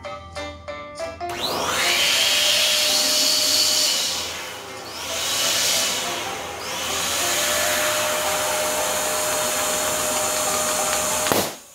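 Electric balloon pump running steadily as it inflates a latex balloon, dipping briefly about four seconds in, then a sharp pop as the balloon bursts near the end, cutting the pump noise off.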